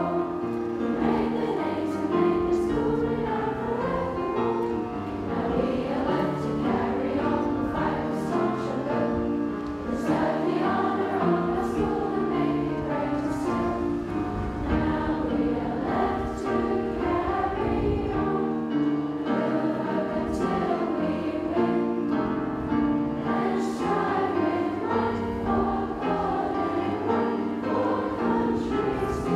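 An assembly of schoolgirls singing the school song together as a large choir, a verse sung in held phrases at a steady level.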